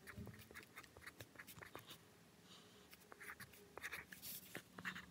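Faint scratching of a pencil on paper, in many short, quick sketching strokes.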